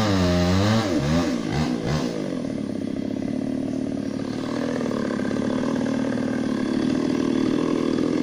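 Chainsaw cutting into a large felled tree trunk, its engine pitch wavering up and down as it labours in the cut. After about two seconds it settles into a steadier, slightly quieter run that slowly builds again.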